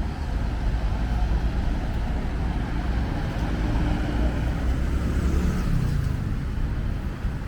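Road traffic: vehicle engines and tyres making a steady low rumble.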